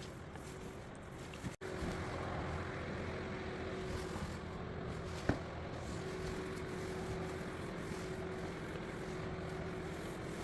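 Steady hum with a constant low tone, broken by a brief cut about a second and a half in, and a single sharp click about five seconds in.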